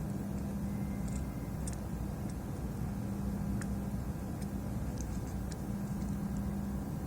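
A steady low hum from bench equipment, with faint, scattered small clicks of tools working on the circuit board.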